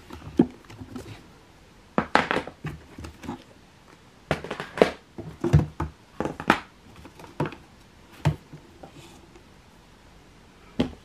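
Eyeshadow palettes clacking and knocking against each other as they are lifted out of a drawer and set down, in irregular clusters of sharp clacks with short pauses between.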